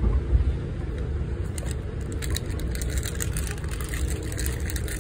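Steady low rumble of trains on the move, heard from inside a passenger car, with a run of rapid clicks and rattles through the middle.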